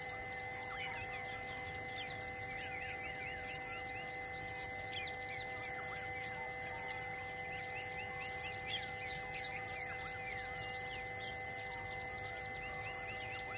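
Forest ambience: a dense chorus of small birds chirping rapidly over a steady insect drone. A short high pulsing call repeats about once a second.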